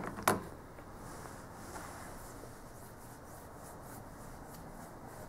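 A smartphone handled and set down on a wooden tabletop: a small click, then a sharper knock about a third of a second in, followed by faint room hiss.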